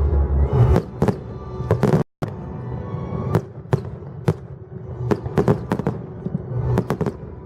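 Fireworks going off, a rapid series of sharp bangs and crackles, over music. The sound cuts out for a moment about two seconds in.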